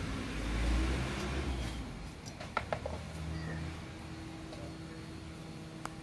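Engine of a passing motor vehicle, its low rumble rising and then fading away over the first two seconds, then a faint steady hum. A few light metal clicks a little over two seconds in as the carburetor parts are handled.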